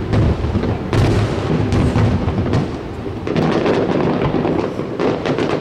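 Aerial fireworks shells bursting: a series of booms with a rolling, thunder-like rumble, several of them a second or two apart. Crackling comes in over the last couple of seconds.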